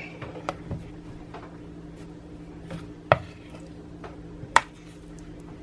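Metal spoon scooping peanut butter and knocking against the mixing bowl: a few sharp clicks, the loudest about three and four and a half seconds in, over a faint steady hum.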